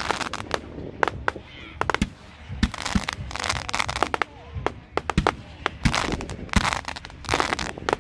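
Professional firework display: many sharp bangs of shells bursting at irregular spacing, with stretches of hissing crackle in between.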